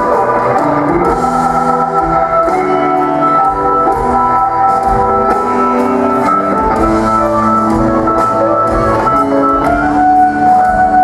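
Live rock band playing a slow blues, with a Hammond organ holding sustained chords over bass guitar, electric guitar and drums; cymbal and drum hits tick through steadily.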